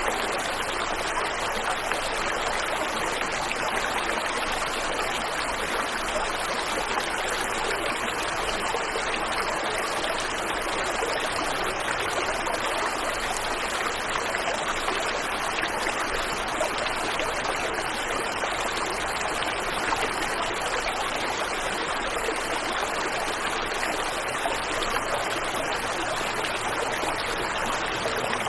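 Waterfall and river water rushing steadily, an even splashing wash that does not change.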